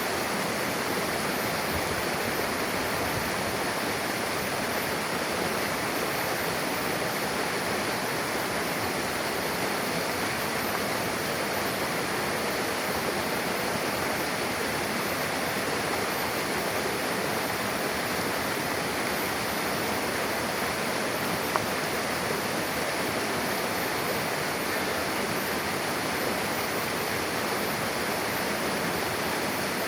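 Mountain river rushing steadily over rocks where two streams meet, a continuous even rush of water.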